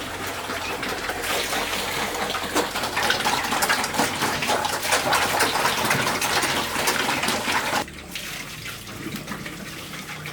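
Water running and splashing, with a spattering sound that cuts off suddenly about eight seconds in.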